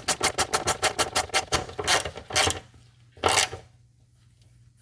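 Ratchet wrench clicking in a fast even run, about ten clicks a second, as the accumulator's mounting bolt is run in. This is followed by a few heavier, separate strokes.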